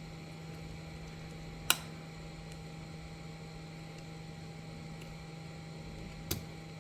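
Two sharp little clicks, one a little under two seconds in and a weaker one near the end, from tweezers and small phone parts being handled while a cell phone's internals are fitted back into place. A steady low hum runs underneath.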